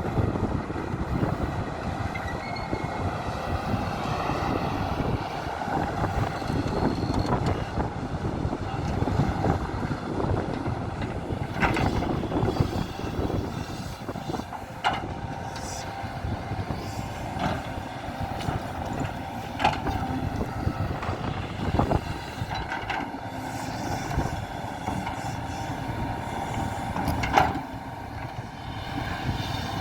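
JCB JS175W wheeled excavator's diesel engine running steadily while the machine works. Occasional sharp metallic clanks come every few seconds from about the middle on.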